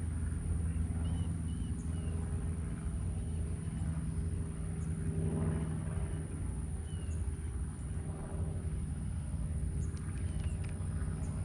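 A steady low motor hum, with a few faint bird chirps.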